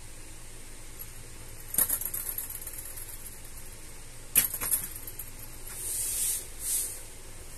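Cats pawing at the nylon canopy of an open umbrella: a few sharp clicks and rustles, with two short bursts of rustling near the end.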